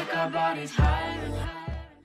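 Background music with a strong bass line and beat hits, fading out near the end.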